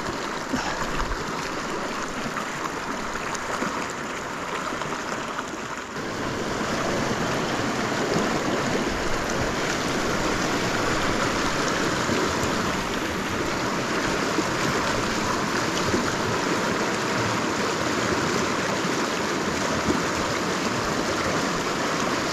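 River water flowing with a steady rushing sound, which gets louder about six seconds in and stays level after that.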